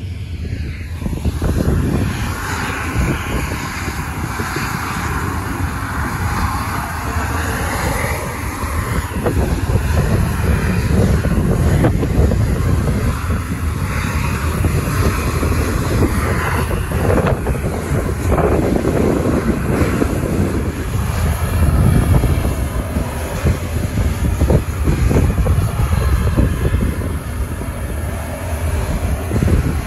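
Boeing C-17 Globemaster III's four turbofan jet engines running close by: a loud, steady jet roar with a strong low rumble, and a higher hiss that swells during the first ten seconds.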